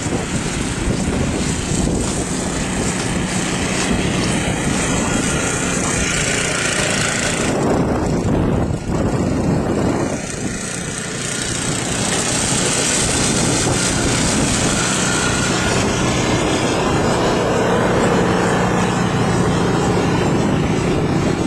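Blizzard wind gusting hard across the microphone, with an engine running steadily underneath.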